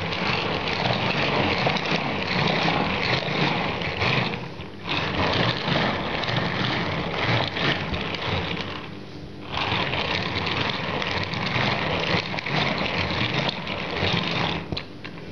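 Electric mixer running at speed, its beaters churning a thick cheesecake filling of cream, ricotta and eggs in a bowl, with a steady motor hum. The sound dips briefly twice, about a third and about two thirds of the way through.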